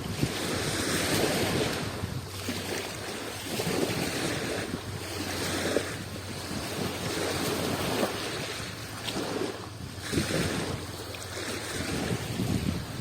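Adriatic Sea waves washing in and out at the shore, swelling and easing every two to three seconds, with brief lulls between surges.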